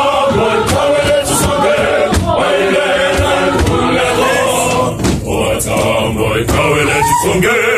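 A choir singing together inside a bus cabin, many voices at once.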